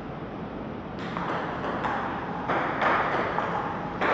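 Celluloid-type table tennis ball clicking off paddles and the table in a rally, sharp knocks about three a second, starting about a second in.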